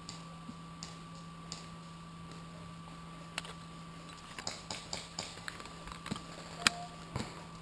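A run of sharp, irregular clicks and taps begins about halfway through, with the loudest single click near the end, over a steady electronic hum.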